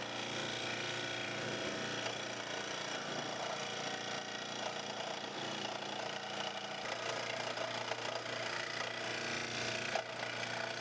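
Scroll saw running steadily, its reciprocating blade cutting through a 2x4 along a traced outline.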